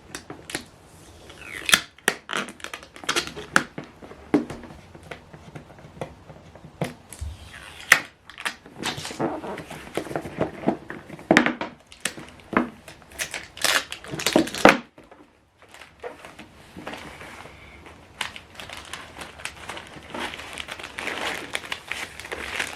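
A keyboard's cardboard box and packaging being opened and handled: irregular crinkling, crumpling and tearing with sharp clicks and knocks, pausing briefly about two-thirds of the way through.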